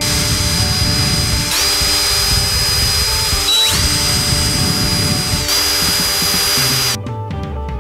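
Cordless drill running at high speed, drilling small holes in a wooden board: a steady high whine that briefly slows and speeds back up about halfway through, stopping about seven seconds in.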